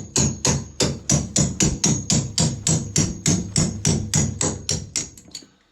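Rapid, steady hammer blows on a steel pin punch, about three to four a second, driving out the pins that join the sections of a Stannah 260 curved stairlift rail; the last few strikes are lighter before they stop.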